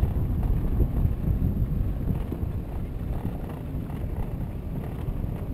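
Wind buffeting the microphone and low rumble from a pedal car rolling at speed over tarmac, recorded onboard; the rush eases off gradually.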